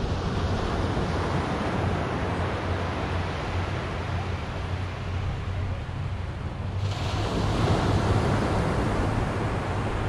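Ocean surf breaking and washing up a sandy beach, with wind rumbling on the microphone; the wash grows louder about seven seconds in.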